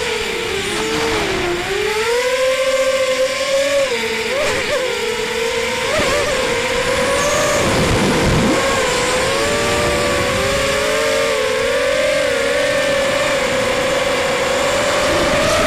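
ZMR250 racing quadcopter's four T-Motor 1806 2300Kv brushless motors spinning 5x4.5 props at high speed, a loud whine whose pitch rises and falls with the throttle as it banks and turns, dropping lower about a second in before climbing back.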